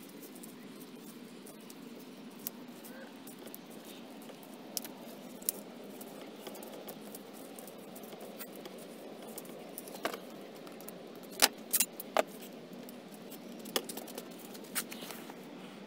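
Electrical tape being wrapped around a plastic waste pipe, and the pipe being handled. Scattered sharp clicks and knocks, several close together in the second half, over a steady low rushing background.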